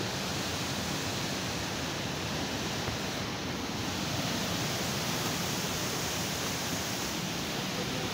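Steady rushing of a mountain creek running over rocks.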